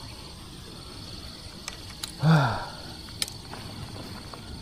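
A steady high insect drone, like crickets, with a few sharp clicks, and a bit past halfway a man's short falling vocal sound, like a sigh, which is the loudest sound.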